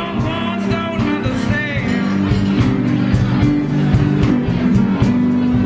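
Live blues band playing a song: electric guitars, electric bass, keyboards and a drum kit keeping a steady beat.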